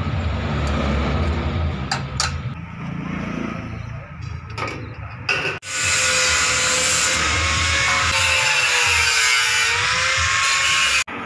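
A low engine hum with a few clicks, then after a sudden break a power tool running loudly with a whine that dips and rises, stopping abruptly near the end.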